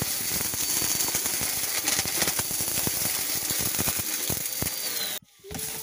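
Upright vacuum cleaner running over carpet, sucking up a loose mix of glitter and sequins that rattles through it as a dense stream of clicks over the motor's steady whine. The sound cuts off abruptly about five seconds in.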